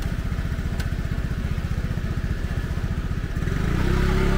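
Motor scooter engine idling close by with a rapid, even putter, then running louder and smoother about three seconds in as it is throttled up.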